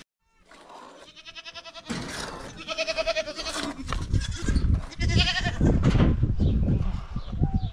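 Goats bleating, three or four wavering calls, over a rapid run of low thumps and rustling that grows louder about halfway through.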